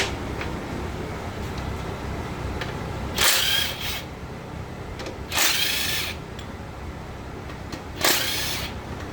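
A power tool run in three short bursts, about two seconds apart. It is backing out the bolts of a truck transmission's bearing caps.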